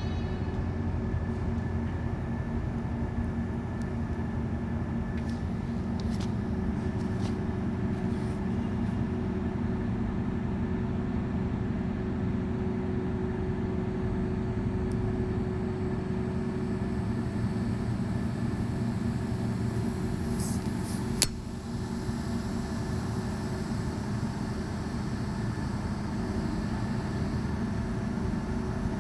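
Mobile crane's diesel engine running steadily with a constant hum. There is a single sharp click about two-thirds of the way through, after which the drone is a little quieter.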